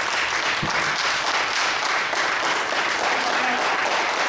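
Steady applause from spectators cheering on a kettlebell lifter who is still working through her set. There is one dull low thump about half a second in.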